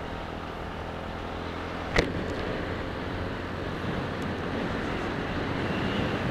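TVS Ntorq 125 scooter's single-cylinder engine running as it rides off, with road and wind noise, growing slowly louder. A single sharp knock about two seconds in.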